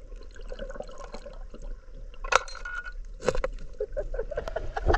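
River water splashing and trickling, with two sharper splashes about two and a half and three and a half seconds in.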